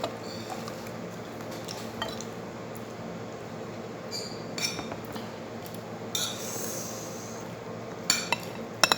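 Spoon and fork clinking and scraping against a plate while eating, a few scattered clinks with several close together near the end, over a steady low hum.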